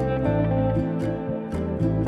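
Instrumental background music led by acoustic guitar, its notes and chords changing about every half second.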